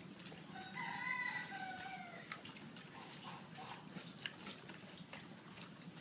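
A rooster crows once, one call of under two seconds that drops in pitch at the end. Around it, cows are crunching and rustling as they pull and chew hay.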